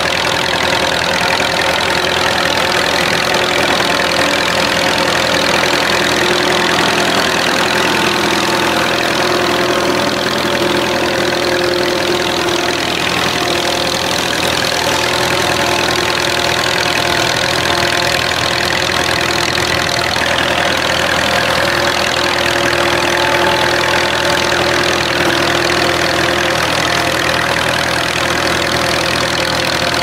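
Vintage tractor engine running steadily while ploughing.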